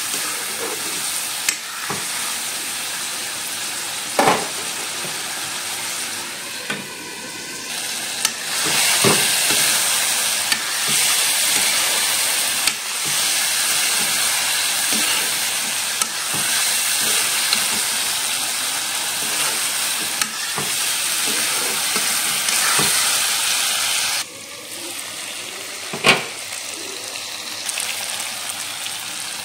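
Broiler chicken pieces sizzling as they fry in a metal kadai while a spatula stirs them, with a few sharp clacks of the spatula against the pan. The sizzle grows louder about a third of the way in and drops suddenly near the end.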